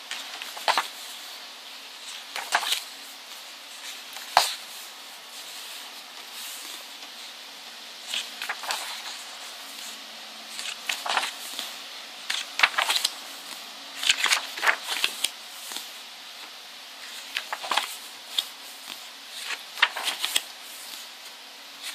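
Pages of a glossy photobook being turned and handled: scattered short paper rustles and light taps, some coming in quick clusters.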